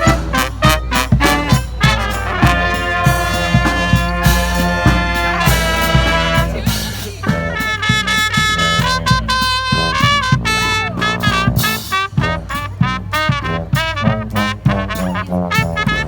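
Brass band music: horns play held and moving notes in a swing-style tune over a steady drumbeat and bass.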